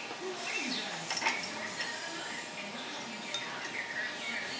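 Metal tools and parts clinking against a steel bench vise as gloved hands work a part clamped in its jaws, with one sharp clink about a second in.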